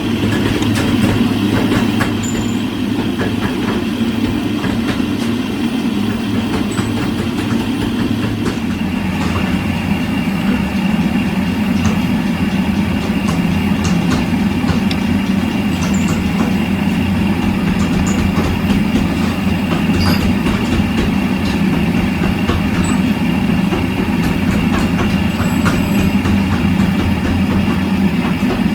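Steady low drone of factory machinery running, with faint scattered clicks; a thin high whine joins about eight seconds in.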